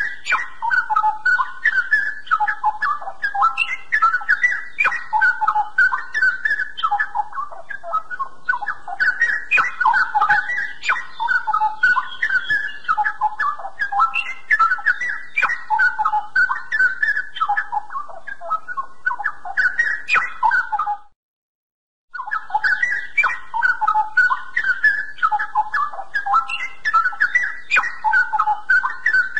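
Straw-headed bulbul (cucak rowo) singing a continuous, rich warbling song of quick notes. About twenty seconds in it breaks off for a second, then resumes.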